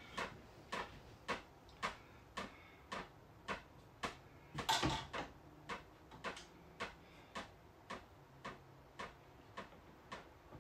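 Steady, even ticking, just under two ticks a second, with one louder knock about halfway through.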